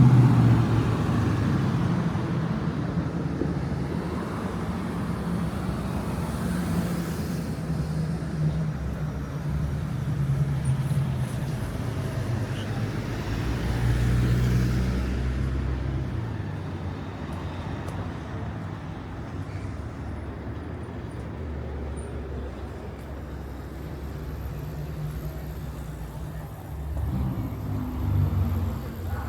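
City street traffic: car engines running and passing, one loud and close at the start that fades away, and another rising near the end.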